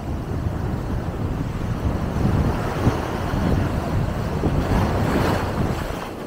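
Surf breaking on a sandy beach, with foam washing up the sand, over a low rumble of wind buffeting the microphone. A wave's wash rises to a louder hiss about five seconds in.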